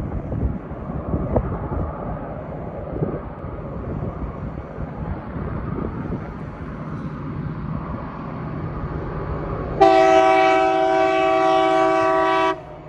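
Class MZ diesel locomotive approaching with a low rumble, then its horn sounds one long, loud blast of several notes together, starting about ten seconds in and cutting off sharply after nearly three seconds.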